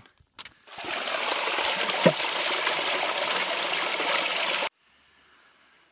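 Mountain stream water splashing over rocks and into a plastic bottle held under a small cascade to fill it, a steady rush that stops abruptly near the end. A brief knock comes about two seconds in.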